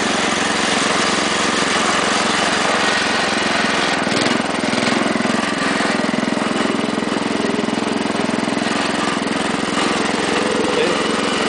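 Small engine of a 1961 Wheel Horse garden tractor running steadily as the tractor is driven, its note changing about four seconds in.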